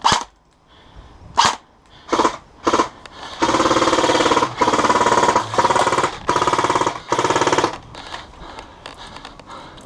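Airsoft gun firing: four single shots, then five long bursts of automatic fire in quick succession, each broken by a short pause.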